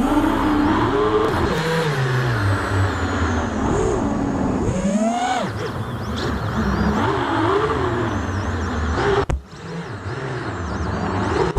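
iFlight XL6 six-inch FPV quadcopter's motors and propellers whining in flight, the pitch rising and falling constantly with the throttle. About nine seconds in, the sound drops off sharply.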